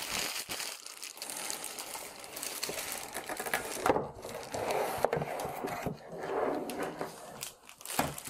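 Rustling and crinkling of packaging being handled and moved aside, with small knocks and clicks.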